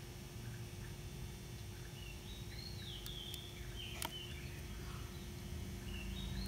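Quiet background hum with a bird calling twice, each call a rising then falling whistle about a second long, and a single light click about four seconds in.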